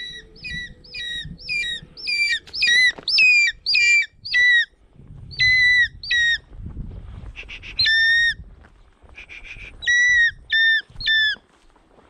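Changeable hawk-eagle giving a series of shrill, repeated calls: a quick run of short notes, about three a second, then calls in pairs and threes after short pauses.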